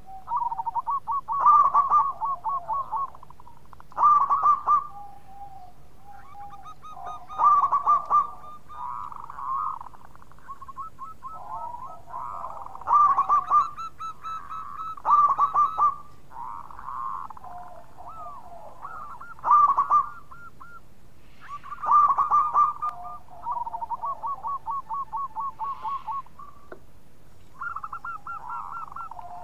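Zebra doves (perkutut) cooing. Loud bursts of rapid staccato coos come every few seconds, with softer trilling coo phrases between them, at times overlapping with a second, lower-pitched bird.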